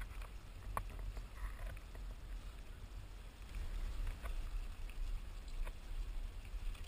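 Steady low rumble on a handheld GoPro's microphone, with a few faint clicks scattered through it.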